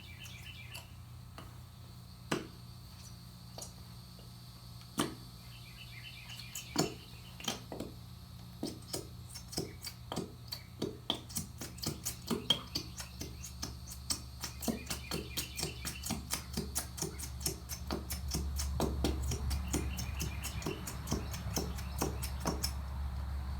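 Color-changing glue being squeezed out of a plastic bottle, sputtering and squelching with irregular short pops that come faster and closer together as the bottle empties.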